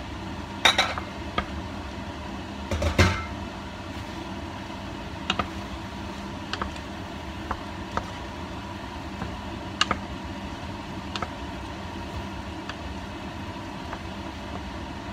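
A bowl clattering against the rim of a stainless steel pot as pasta is tipped in, twice in the first few seconds. Then a wooden spoon stirring the pasta through the sauce, knocking against the pot now and then, over a steady low hum.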